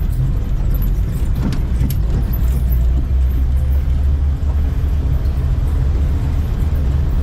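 Car driving along a winding mountain road, heard from inside the cabin: a steady low rumble of engine and road noise, with a few light clicks or rattles in the first seconds.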